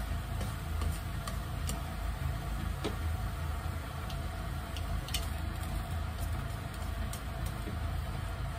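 Shrimp sizzling in a frying pan on a gas stove while wooden chopsticks stir them, clicking against the pan now and then. A steady low hum runs underneath.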